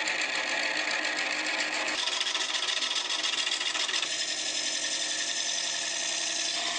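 Wood lathe turning a segmented maple-and-walnut ring while a hand-held turning tool cuts into it: a steady shaving hiss over the machine's run. The cut changes in character about two and four seconds in.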